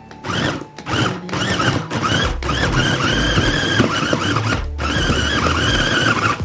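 Small electric meat chopper with a glass bowl grinding raw pork, its motor whining in pulses with a few short stops, then running steadier with a heavier low hum from about two seconds in as the blades work through the meat.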